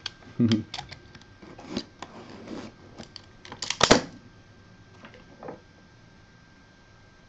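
Hands opening and handling a box of trading cards: scattered clicks and taps, a thump about half a second in, and a short loud rustle just before four seconds.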